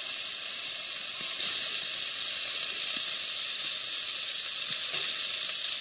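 Sliced onions sizzling in hot mustard oil in a kadai, left unstirred: a steady, even, high hiss.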